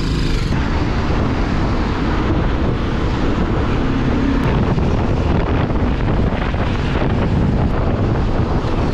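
Wind rushing over the on-board camera microphone of a moving motorcycle, a steady loud noise with engine and road noise underneath.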